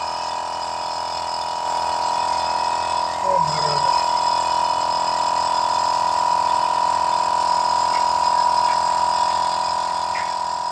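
Air spray gun spraying primer onto a car body: a steady hiss over the constant hum of the air compressor feeding it.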